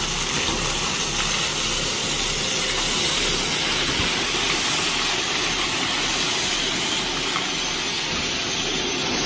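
2B crushed limestone sliding and pouring out of the open barn-door tailgate of a raised end-dump trailer, a steady rush of tumbling stone.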